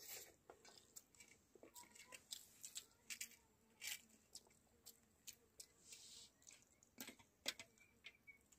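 Faint mukbang eating sounds of rice eaten by hand from steel plates: chewing and finger-licking mixed with fingers scraping rice across the metal plates. They come as scattered short clicks and crackles, a few louder ones about four seconds in and near the end.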